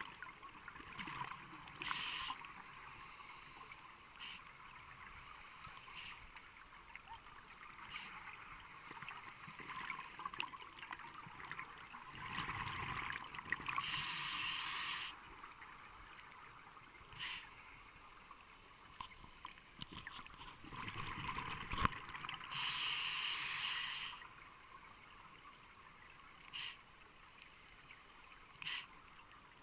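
Scuba regulator breathing heard underwater: three loud rushes of exhaled bubbles, the longest about a second and a half, with several shorter bubble bursts between them over a steady underwater hiss.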